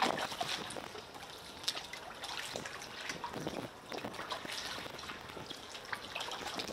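Water trickling and splashing around a moving kayak, with irregular small splashes and drips from paddle strokes and water lapping.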